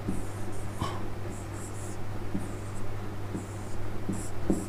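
Pen strokes scratching on a writing surface while a diagram is drawn: several short separate strokes over a low steady hum.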